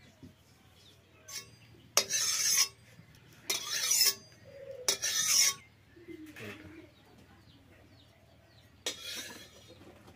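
Four short rasping scrapes, each about half a second, of a metal karahi pan against its clay stove as it is handled and set in place.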